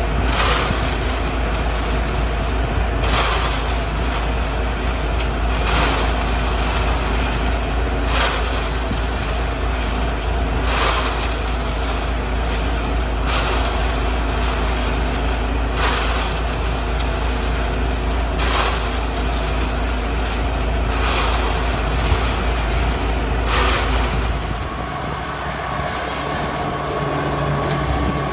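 Lai Gong H30 self-loading concrete mixer running, its engine holding a steady note with a short whoosh that repeats about every two and a half seconds. A few seconds before the end the engine note changes.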